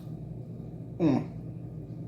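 A person's single short vocal sound about a second in, falling quickly in pitch.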